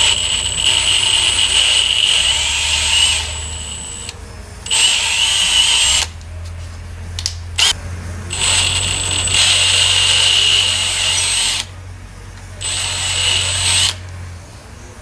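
Electric drill boring out a cross-threaded distributor hold-down bolt hole in an aluminum intake manifold. It runs in four bursts of one to three seconds, each a steady high whine, with short pauses between.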